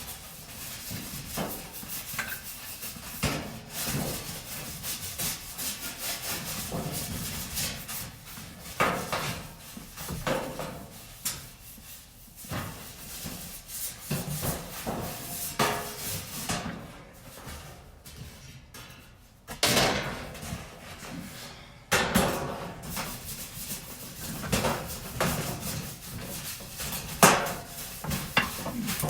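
Irregular knocks, clatters and scraping as dryer panels and parts are handled and shifted during reassembly, with a few sharper bangs now and then.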